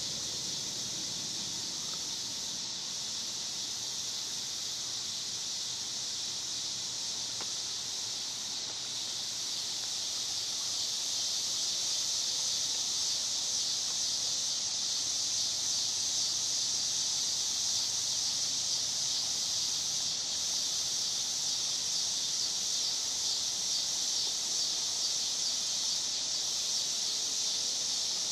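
Chorus of insects such as crickets or cicadas: a steady, high-pitched shrill drone, growing louder about ten seconds in.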